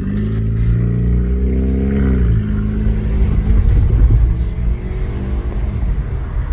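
A 2012 Scion's engine accelerating with the window down: its pitch rises for about two seconds, then drops suddenly as it shifts up. After that comes a dense rumble of engine, road and wind noise.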